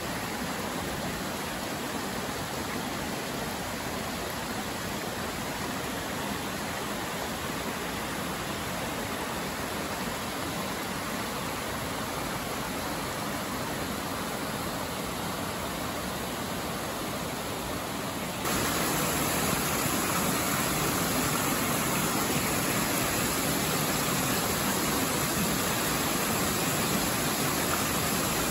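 Creek water rushing over rock ledges and small waterfalls, a steady hiss with no breaks. About two-thirds of the way through it becomes suddenly louder and brighter.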